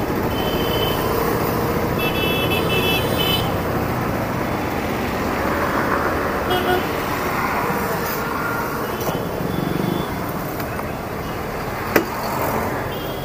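Hero Destini 125 scooter's single-cylinder four-stroke engine running while riding in city traffic, with road and traffic noise around it. Vehicle horns sound briefly at the start and again around two to three seconds in, with a shorter toot later.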